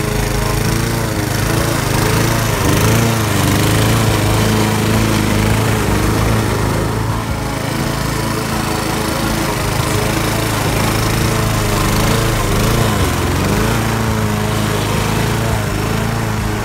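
Petrol walk-behind rotary lawn mower engine running steadily under load as it cuts the grass, its note wavering. It is labouring because too much grass is being taken off in one pass.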